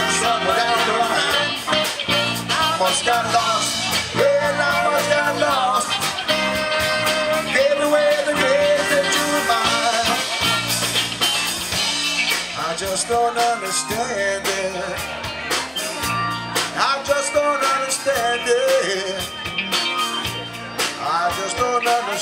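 Live band playing an instrumental break in a blues-rock song, with a trumpet playing the lead line over upright bass and rhythm section.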